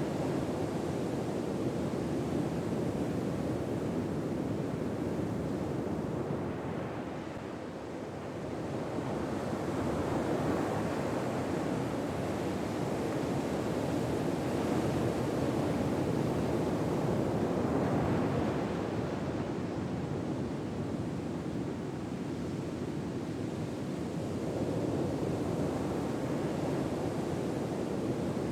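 Ocean waves washing onto a shore, a steady rushing that swells and fades slowly a few times.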